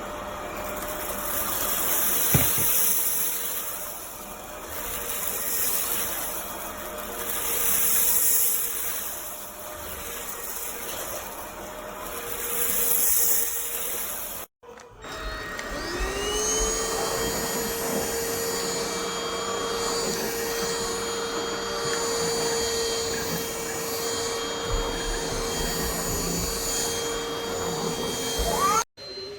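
Bieiao cordless stick vacuum's motor running with a steady whine, its suction noise swelling and fading several times. After a brief break about halfway it spins up again with a rising whine, runs steadily, and cuts off suddenly near the end.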